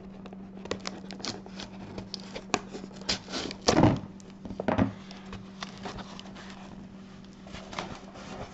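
Pocket knife slitting packing tape on a cardboard mailer, with crackles and rustles as the box is handled and a louder scrape about three and a half seconds in. A faint steady hum sits underneath.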